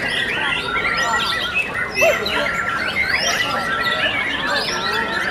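Many caged songbirds singing at once: a dense mix of whistles, trills and chirps, with a short level whistle repeated about once a second.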